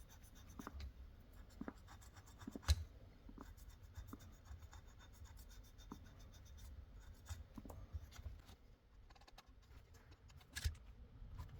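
Faint scratching and small clicks of handling on a repair bench, with one sharper click about three seconds in and another near the end.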